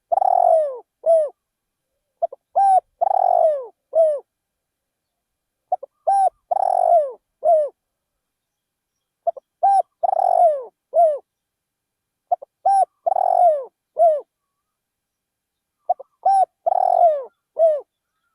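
Spotted dove cooing its song over and over: each phrase is a couple of short notes, a long falling coo and a short closing note, repeated about every three and a half seconds.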